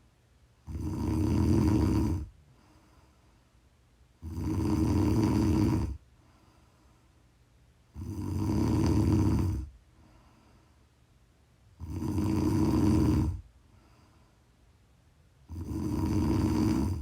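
A person snoring in a slow, even rhythm: five long, loud snores, about one every three and a half to four seconds, with quiet breathing pauses between them.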